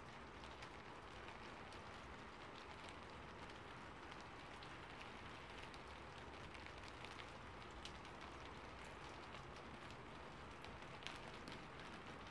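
Faint steady rain ambience, an even hiss with scattered sharp ticks.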